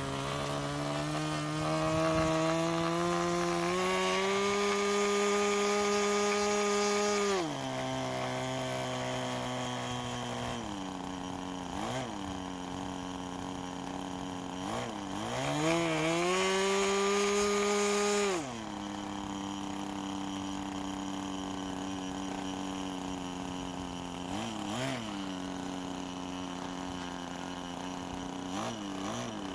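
Small OS 15 FP two-stroke glow engine on a model airplane, swinging an 8×4 propeller, running on the ground. It sits at a steady lower speed and is twice opened up to high revs for several seconds, about two seconds in and again about fifteen seconds in, each time dropping back sharply. Several short throttle blips come in between, as in a pre-flight throttle check.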